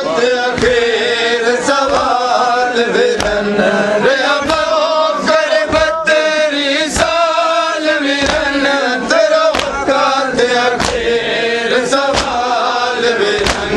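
Men chanting a Muharram mourning lament, with the sharp, rhythmic slaps of chest-beating (matam) landing at a steady beat of a little more than one a second.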